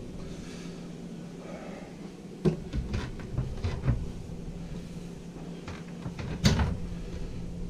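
Wooden galley cabinet doors and drawers being handled: a few scattered knocks and clicks, the loudest about six and a half seconds in, over a steady low hum.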